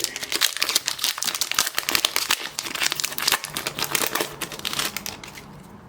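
Trading-card pack wrapper crinkling and tearing as a pack is opened, a dense crackling that dies down about five seconds in.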